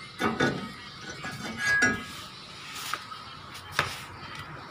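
Metal brake parts and tools clinking and knocking as they are handled during a disc brake job: several separate sharp clinks, some ringing briefly.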